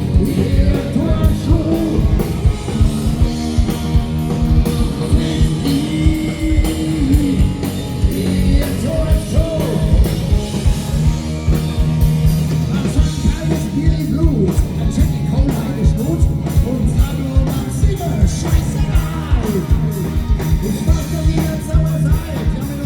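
Live rock band playing a song, with a singer over a steady drum beat.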